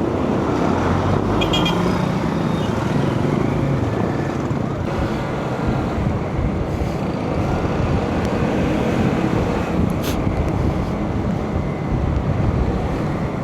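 Motorcycle riding along a road: steady engine and road noise, with wind on the microphone.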